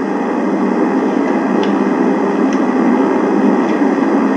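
Steady hiss and rumble of the recording's background noise, as loud as the speech around it, with a few faint clicks.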